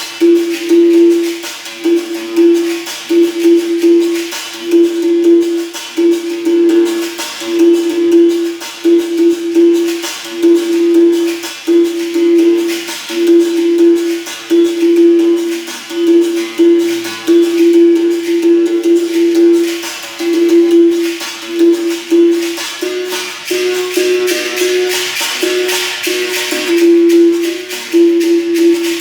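Berimbau played with a caxixi shaker: a steady rhythmic pattern of struck notes, mostly on one pitch, with a slightly higher note coming in near the end, and the caxixi rattling along with each stroke.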